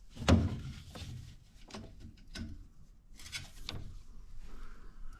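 A few short knocks and clicks, the loudest about a third of a second in, with light rustling between them, as a gloved hand handles wiring and parts inside a combi boiler's casing.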